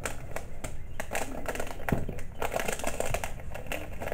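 Small plastic zip bags of screws and frame hardware crinkling and rustling as they are handled, with many irregular small clicks of the parts inside.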